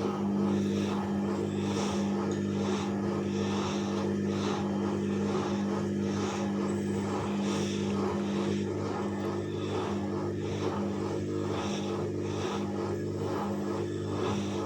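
Bauknecht WAS 1400 washing machine running: a steady motor tone with a swish repeating about every three-quarters of a second.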